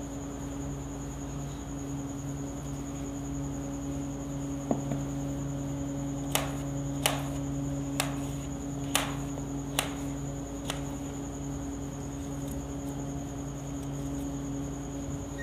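Knife chopping a cucumber on a serving tray: about seven sharp knocks, roughly one a second, through the middle stretch. A steady electrical hum with a thin high whine runs underneath.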